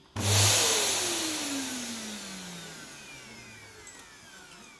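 Vacuum cleaner motor comes on with a sudden burst of noise just after the start, then spins down with a falling whine that fades away over about four seconds.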